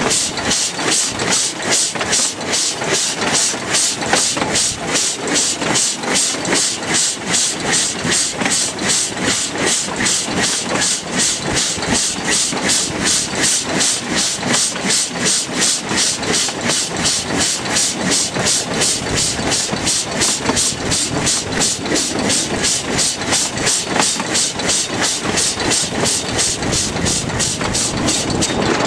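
Narrow-gauge train running along the line, heard from an open coach window: a fast, even, rhythmic clatter over the steady drone of the hauling TU2 diesel locomotive.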